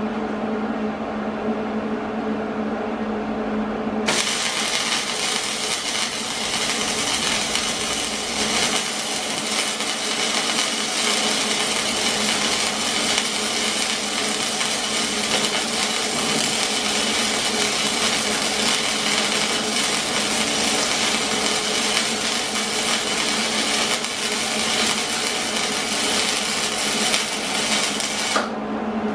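Wire-feed welder arc crackling steadily as a weld bead is run on a steel go-kart frame bracket. The arc strikes suddenly about four seconds in, over a steady hum, and cuts off shortly before the end.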